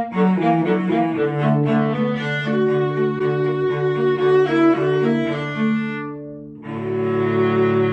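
A viola and a cello playing a piece together as a duet, with moving melodic lines over sustained low cello notes. About six seconds in the music thins out and dips briefly, then both instruments come back in on long held notes.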